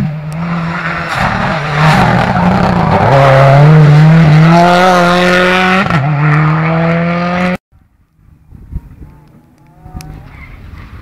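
Rally car engine accelerating hard as the car passes close, its pitch climbing with a brief dip about three seconds in and again at about six as it shifts up. The sound cuts off abruptly about seven and a half seconds in, leaving a much quieter background.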